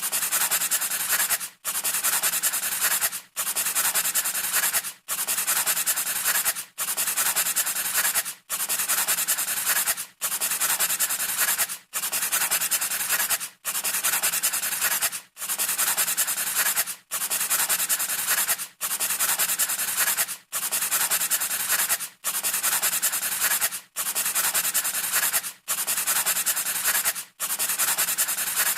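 Rasping, scratching strokes, one about every 1.7 seconds with a brief break between each, repeating evenly like a loop.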